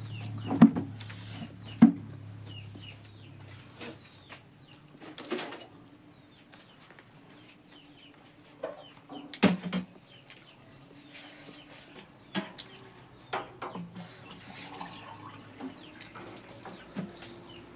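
Eating sounds of rice and pork: scattered sharp clinks of a spoon or fingers against a plate, with chewing between them. Faint short chirps sound in the background throughout, and a low hum stops about four seconds in.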